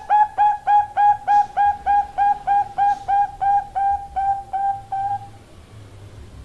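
Female zebra dove (Bangkok-type perkutut) giving a long run of quick, evenly spaced cooing notes, about three to four a second, growing slightly fainter until the run stops a little after five seconds in.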